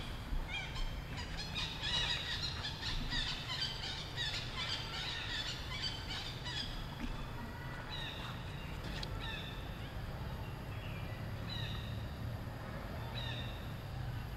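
Many short, high-pitched animal calls, crowded together for the first half and then coming singly every second or two, over a steady low rumble.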